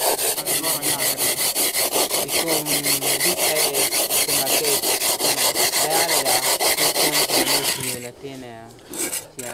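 Hand saw with a carbide abrasive-grit blade sawing through a hard, high-fired clay brick: quick, even back-and-forth strokes, about five a second, that stop about eight seconds in.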